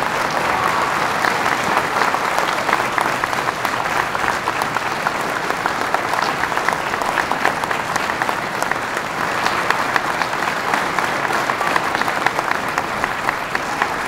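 Sustained applause from an audience of many people clapping steadily, with some voices mixed in.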